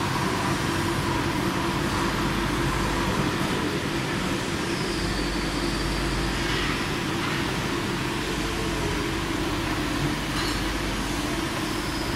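A 2002 NILES-SIMMONS N30/2000 CNC lathe turning a long steel bar under flood coolant. It gives a steady machine hum with the hiss of coolant spray, unchanging throughout.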